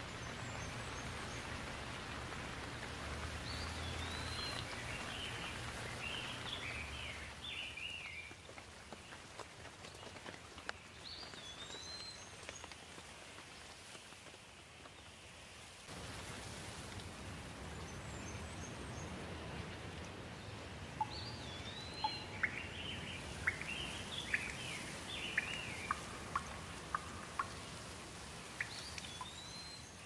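Steady hiss of falling rain with a bird calling over it in short, twittering phrases a few times. In the second half there are sharp little ticks, most likely drops landing.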